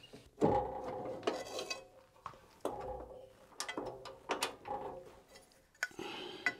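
Intermittent metallic clunks, clicks and rattles of an aluminium strip being handled and repositioned on a metal-cutting bandsaw, ready for its second cut.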